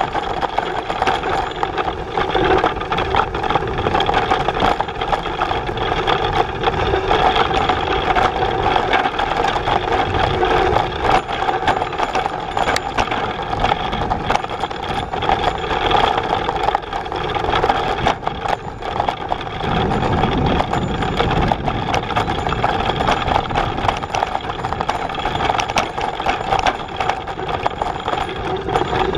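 Cargo bike rolling over a gravel track: steady tyre rumble and rattling of the frame and cargo box, with a steady mechanical hum underneath. The low rumble grows deeper about two-thirds of the way in.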